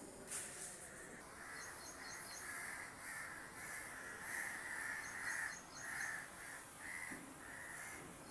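Birds calling: a steady run of short calls about twice a second, with quick high chirps in small clusters a few times.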